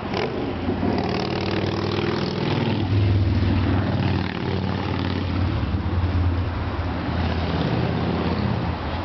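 A large vehicle engine running with a low, steady hum that swells about three seconds in and again around six seconds.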